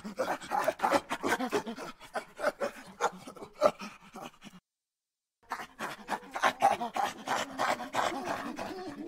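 An animal's rapid, breathy panting with short grunts, several strokes a second. It cuts to dead silence for about a second near the middle, then resumes.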